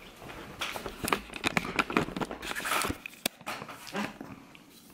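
Handling noise as a camera is picked up and moved in close: a scatter of clicks and knocks with some rustling.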